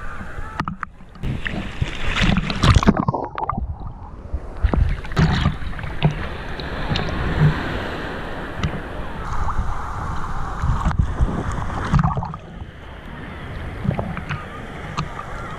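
Seawater sloshing and splashing around a GoPro held at the surface by a swimmer, with swimming splashes; at times the sound turns muffled and gurgly as the camera dips under the water.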